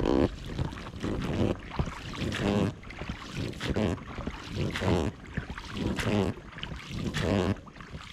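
Inflatable boat being rowed, with regular oar strokes about one a second and water sounds.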